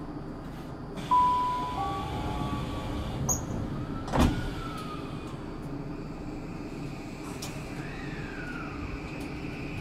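Door chime on a Tokyu 5000 series commuter train, a few short tones, then the sliding passenger doors close with a thump about four seconds in, over the train's steady background hum.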